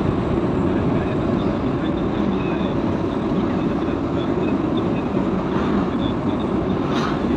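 Steady rumble of road and wind noise from a vehicle driving along a paved road, with one short click near the end.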